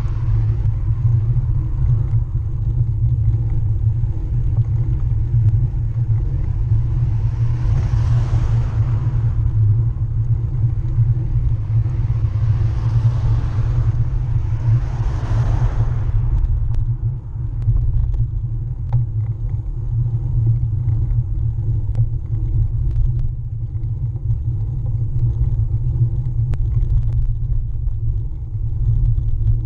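Steady low rumble of a road bike's rear tyre rolling on tarmac, with wind buffeting the GoPro mounted beside the rear wheel. Three cars swish past, a third of the way in and twice around halfway.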